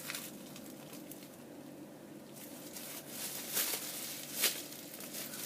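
Soft rustling and crinkling of a plastic bag being handled around a squishy toy, with two short louder rustles about three and a half and four and a half seconds in.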